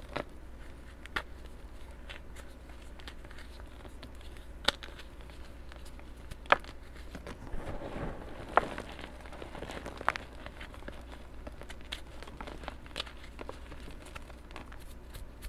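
Bare hands crushing crumbly chalky chunks into powder: soft, continuous crunching and crumbling, with a handful of sharper cracks between about five and ten seconds in.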